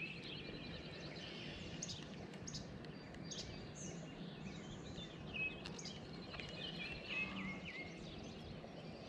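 Songbirds chirping and singing in short repeated calls and trills over a steady background noise.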